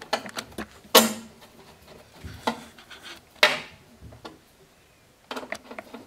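Screwdriver clicking and scraping as screws are driven into the element cover of an electric water heater. A few sharper knocks come about a second, two and a half and three and a half seconds in, and a run of small ticks comes near the end.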